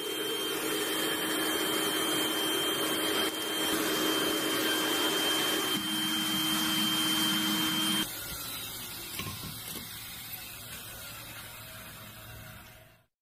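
Air blower feeding a homemade metal-melting furnace, a steady whirring with a high whine over a rushing of air. About eight seconds in, the whine stops and a quieter rushing carries on until it cuts off.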